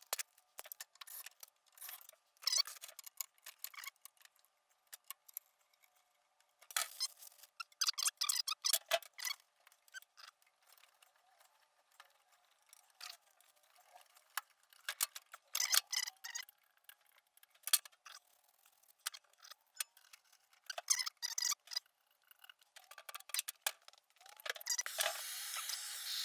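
Scattered clicks and short scratchy rattles of plumbing fittings and hand tools being handled. Near the end a steady hiss starts, a plumbing torch being lit.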